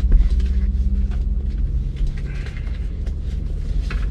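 Steady low diesel rumble of a semi-truck engine idling, with a few light handling clicks.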